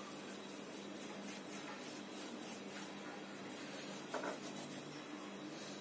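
Faint rubbing of hands shaping soft bread dough into balls on a countertop, over a steady low hum, with one light knock about four seconds in.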